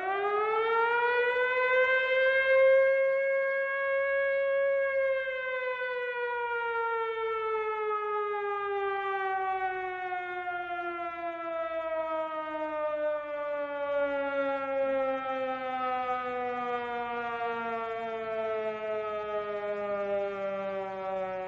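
Air raid siren wailing: its pitch finishes rising within the first second, holds steady for about four seconds, then slides slowly and evenly downward as the siren winds down.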